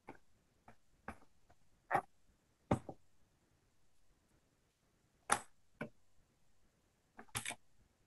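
Scattered light clicks and taps of plastic being handled on a clear-stamp stamping platform, several short knocks at irregular intervals, with a quick double click near the end.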